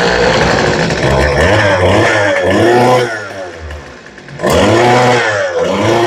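Two-stroke string trimmer engine running on a freshly fitted carburetor, revved with the throttle so its pitch rises and falls, dropping back lower for about a second and a half midway before being revved up again. The uneven running means the new carburetor needs a little adjustment.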